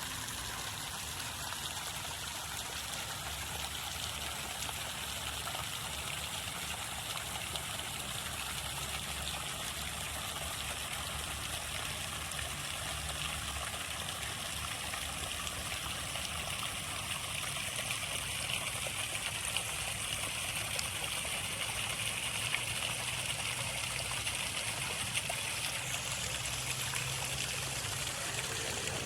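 Steady trickle of running water with faint small splashes.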